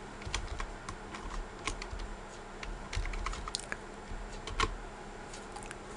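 Computer keyboard keys clicking: scattered, irregular keystrokes while a line of code is deleted and edited.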